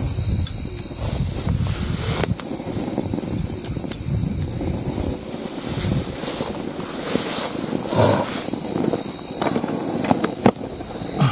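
Wind buffeting the microphone with rustling of grass and leaves as bush stems are pulled at by hand, and a few sharp clicks near the end.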